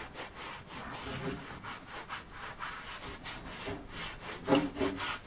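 Brass wire brush scrubbing the painted steel shell of a WWII German M40 helmet in quick back-and-forth strokes, about two to three a second, loudest about four and a half seconds in.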